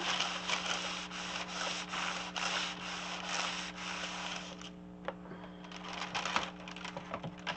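A clothes iron slides back and forth over baking parchment paper laid on vellum, making a repeated rubbing swish. The rubbing stops a little after four seconds in, and a few light paper rustles and taps follow as the paper is handled.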